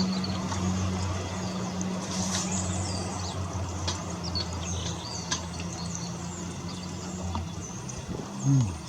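Small garden birds chirping and twittering over a steady low engine-like hum. The hum stops about seven seconds in, and a brief low falling sound follows near the end.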